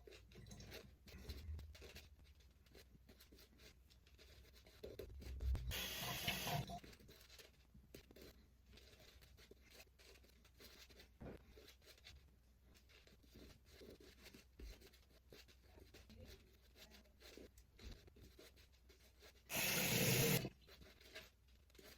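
Faint rubbing and scratching of a shaving brush working lather, with two short louder rushes of noise, one about five seconds in and a shorter one near the end.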